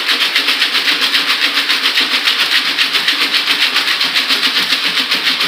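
Wooden pellet cat litter rattling in a plastic mesh sieve tray that is shaken rapidly back and forth, in an even rhythm of about six shakes a second. The shaking sifts the crumbled sawdust from used pellets through the mesh into the tub below.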